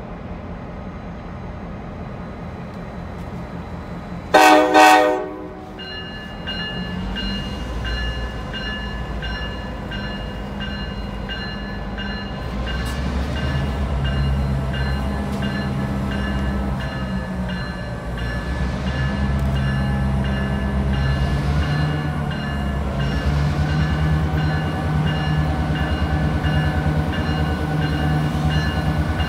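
Diesel locomotives of an EMD F-unit-led passenger train approaching slowly, their low engine rumble growing steadily louder. One short air horn blast sounds about four seconds in and is the loudest sound. After it a thin, high, steady squeal, typical of wheel flanges on a curve, carries on over the engines.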